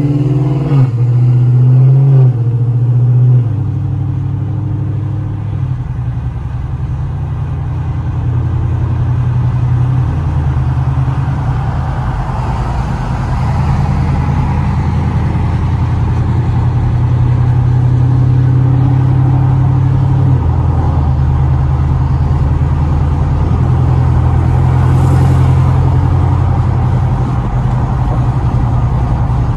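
2016 Camaro SS's 6.2-litre V8 heard from inside the cabin, accelerating up to highway speed. It is loudest in the first few seconds, then runs on under load, its note stepping to a new pitch at each gear change.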